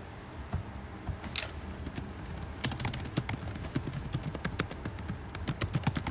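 Fingertips tapping on a smartphone's touchscreen, heard through the phone's own microphone as an irregular run of quick clicks that starts sparse and grows busy in the second half.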